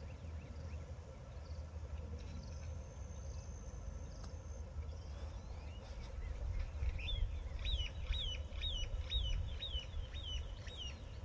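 A bird calling a run of about eight sharp chirps, roughly two a second, starting about seven seconds in, over a steady low rumble.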